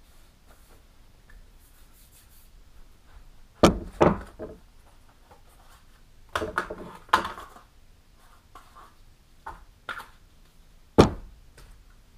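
Handling noise while swapping whetstones: an irregular series of sharp knocks and clunks as stones and their boxes are picked up and set down. The sharpest knocks come about four seconds in and again near the end.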